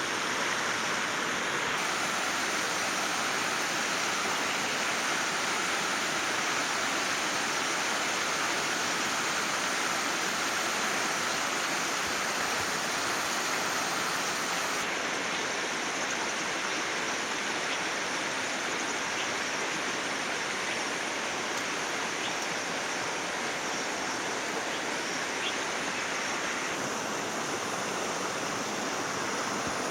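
Steady rushing water, a stream or waterfall flowing, with a constant, even hiss. Its tone shifts slightly about halfway through and again near the end.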